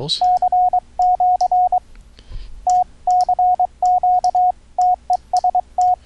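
Morse code sidetone from the EhoCW software, keyed by hand on iambic paddles: one steady tone sent as dits and dahs in letter groups at about 23 words per minute, with faint clicks alongside.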